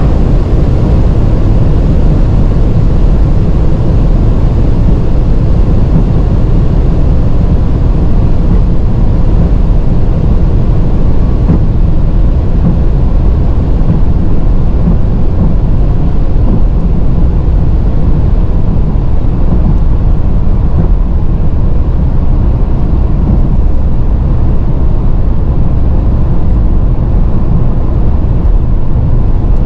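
Steady, deep roar inside the cabin of a Bentley Continental GT Speed at very high speed, wind and road noise over the W12 engine, as the car slows from about 320 km/h to about 200 km/h.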